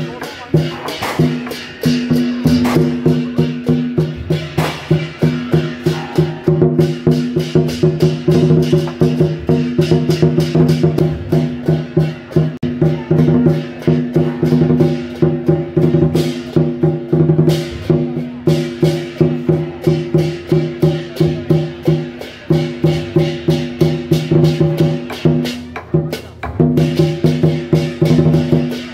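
Lion dance percussion: a drum beaten in a fast, steady rhythm with crashing cymbals, broken by a few short pauses.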